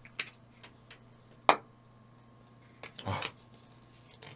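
Light clicks and taps of tableware and food packaging being handled, with one sharp click about a second and a half in and a short rustle about three seconds in.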